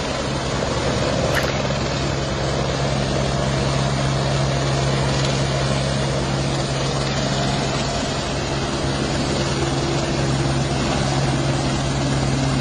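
Firefighters' rescue helicopter running steadily: a constant low drone with its rotor and engine tones over a steady rushing noise.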